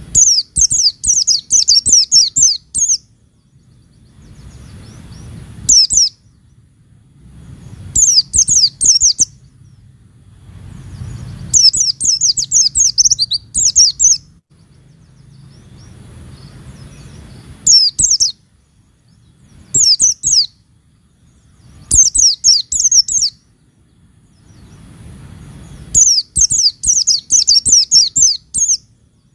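White-eye (pleci) singing in rapid bursts of high twittering notes. About eight phrases of one to three seconds each are broken by short pauses, with a faint low background noise between them.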